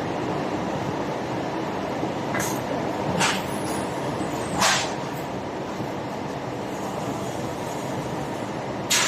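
Steady machinery noise of a plastic injection-moulding plant. A few short sharp sounds come between two and five seconds in, and another comes at the very end.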